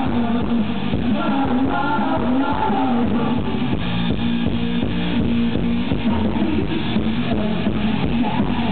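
Live rock band playing amplified music: electric guitars, bass guitar and a drum kit, with a steady beat, heard loud through a camera microphone that cuts off the high end.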